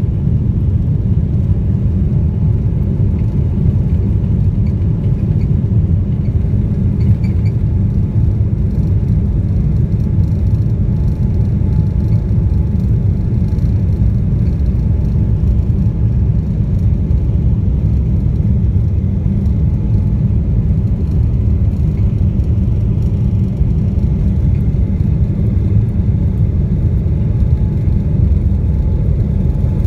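Steady cabin rumble of a Boeing 777-300ER taxiing, its GE90 engines running at low thrust with the airframe and wheels rolling, heard from a window seat beside the engine. A faint steady high tone runs under the rumble.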